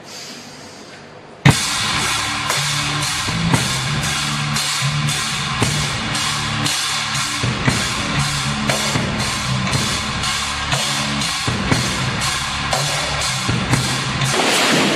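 Band music starts suddenly about a second and a half in: drum kit keeping a steady beat of about three strokes a second, with bass notes from a double bass. A burst of hissing noise rises over the music near the end.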